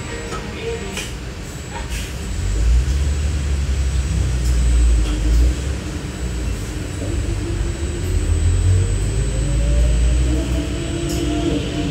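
Inside a moving trolleybus: a low, steady rumble of the ride, with the electric traction motor's whine rising steadily in pitch from about six seconds in as the bus gathers speed.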